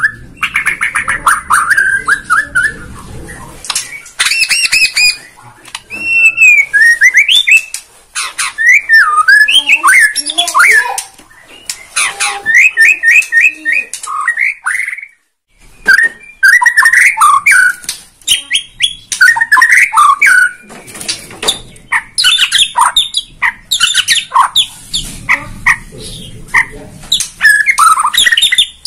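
Caged white-rumped shama (Bornean murai batu) in full song. It runs through a varied repertoire of rich whistles, gliding notes, rapid trills and harsh rattling notes, with a short pause about halfway through.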